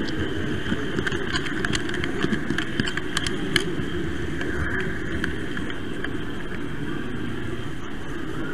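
Model train running on its track, heard from a camera riding on board: a steady rolling rumble of wheels and drive, with irregular sharp clicks over the rails, more of them in the first few seconds.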